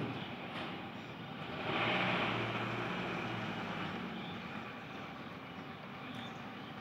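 Background traffic noise with a motor vehicle passing, swelling and fading about two seconds in.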